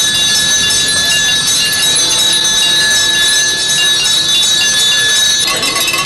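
Many small hand bells ringing together in a dense, continuous jangle of high tones. Near the end, a nearer bell starts being shaken rapidly.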